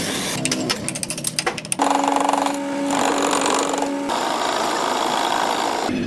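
Metalworking power tools: a rapid, uneven clatter of metal impacts, then a machine running steadily with a humming tone and a hiss, which changes about four seconds in and stops near the end.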